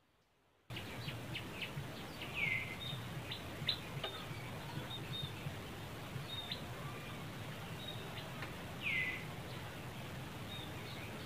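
Outdoor ambience of birds chirping over a steady background hiss, cutting in suddenly about a second in. Two louder, short, falling calls stand out, one a couple of seconds in and one near the end.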